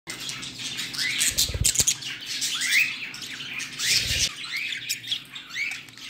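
Budgerigars chirping and chattering in quick, short curved chirps. Low thumps come about a second and a half in and again around four seconds.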